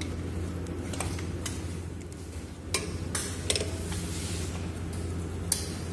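Scattered sharp metal clinks and taps of hand tools on the steel bolts and flange of a chilled-water strainer cover, about six in all, over a steady low hum of plant-room machinery.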